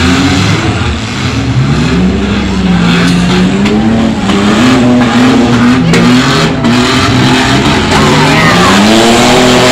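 Demolition derby car engines revving hard, their pitch rising and falling as the cars accelerate across the dirt arena. A few sharp knocks land in the middle.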